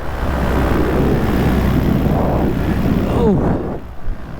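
Paramotor engine and propeller running steadily in flight, with wind on the microphone. The level drops briefly near the end.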